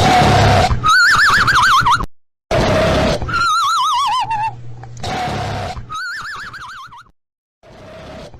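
Horse whinnying three times. Each whinny is a wavering cry that falls in pitch, and short noisy breathy bursts come between them in an evenly repeating pattern.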